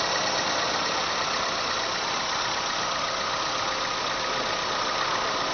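Car engine idling steadily, a constant running noise with a faint steady whine.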